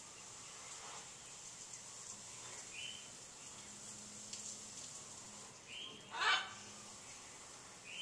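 A macaw gives one loud, harsh squawk about six seconds in. A few short, faint high chirps come before it.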